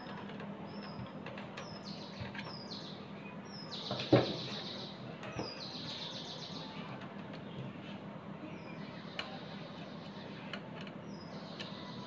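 A bird calling over and over, each call a short high note followed by a buzzy trill, roughly once a second. A sharp knock about four seconds in, with a few lighter taps, as fan parts are handled.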